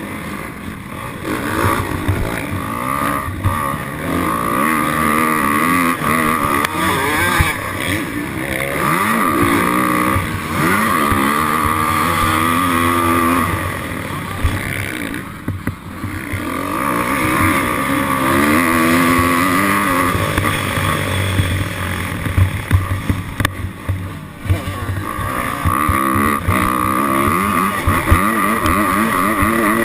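Motorcycle engine running hard, revving up in repeated rising surges and easing off, with short drops in between.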